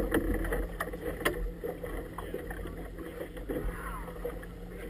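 Choppy river water lapping and splashing against the tube of a small inflatable boat, with wind on the microphone, a low steady hum underneath and a few sharp slaps, one stronger about a second in.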